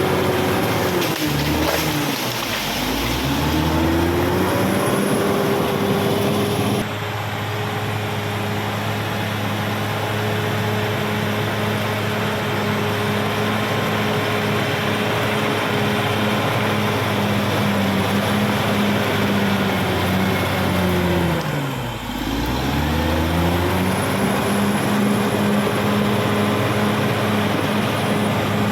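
Caterpillar D6R XL bulldozer's diesel engine running at high revs. Twice its speed drops sharply and climbs back within a couple of seconds, once near the start and once about three-quarters of the way through.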